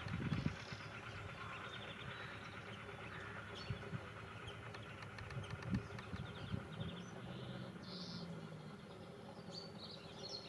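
Small Lister narrow-gauge locomotive running faintly as it draws away, with a few low knocks in the first half second. Birds chirp throughout.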